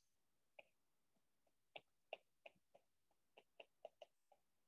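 Faint, irregular ticks of a stylus tip tapping and dragging on a tablet's glass screen during handwriting, about nine in all.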